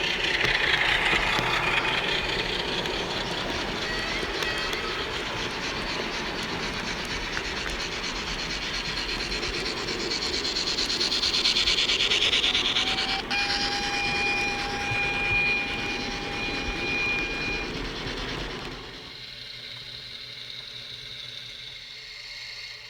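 Model train sound decoder playing locomotive running sounds through small speakers, with a steady tone held for about four seconds past the middle. The sound gets quieter near the end.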